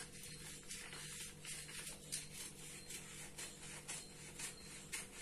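Scissors snipping through a paper blouse pattern, a steady run of short cuts at about two or three a second along a curve, over a faint steady hum.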